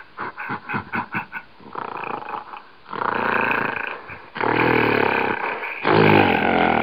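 Recorded bear calls: a quick run of short huffs, about six a second, then three long, deep growls, each more than a second long.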